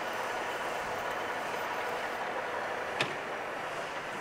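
Metal lathe running steadily, with a wad of steel wool rubbed against the freshly cut 3/4-inch pipe thread on the spinning stainless-steel tube, a steady hissing rub. A single sharp click about three seconds in.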